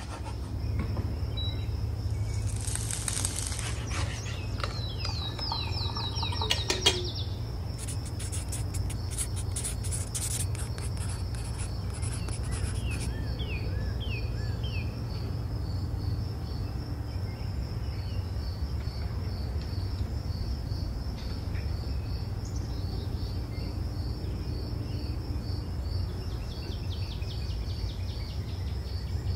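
Birds chirping and a steady, pulsing insect trill, with a few chirps sliding down in pitch several seconds in and a run of quick clicks around a third of the way through, over a constant low rumble.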